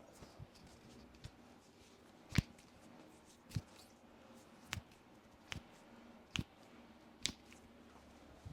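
A series of six short, sharp clicks, roughly one a second, the first the loudest.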